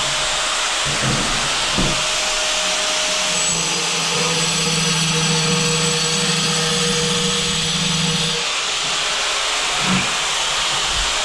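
Angle grinder running steadily, cutting into a hard ceramic wall tile. A lower hum joins about three and a half seconds in and drops out about eight and a half seconds in.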